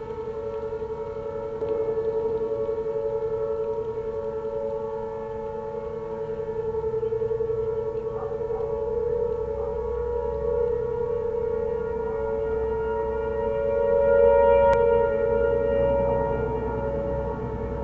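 Several distant outdoor warning sirens sound a steady alert tone together. Among them are a Sentry, a Fedelcode, a Federal Signal 508 and Whelen Vortex R4s at about 560 Hz. Their overlapping pitches hold level and waver slightly, and they swell and fade slowly as the rotating sirens sweep round.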